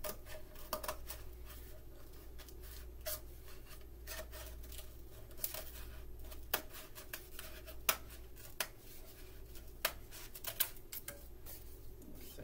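Scissors snipping around a cardboard paper towel tube in a run of irregular cuts, with several sharper snips in the second half. The tube is being trimmed shorter to raise its pitch as a boomwhacker.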